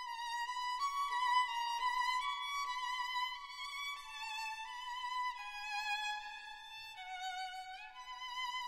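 Background music: a solo violin playing a slow melody of held notes with vibrato, each note lasting a little under a second. The line drifts downward and steps back up near the end.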